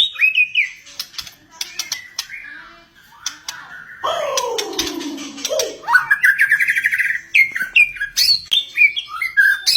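White-rumped shama (murai batu) singing a varied run of short whistles and chirps. About four seconds in it gives one long falling note, then a fast trill around six to seven seconds.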